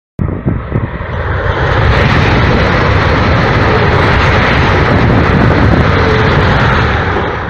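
High-speed train rushing past: a loud roar that starts suddenly, swells over the first couple of seconds, holds, and eases off near the end.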